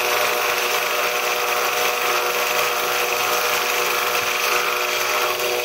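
Belt grinder running steadily while a steel bayonet blade is ground against its belt: a constant motor hum with a dense grinding hiss over it.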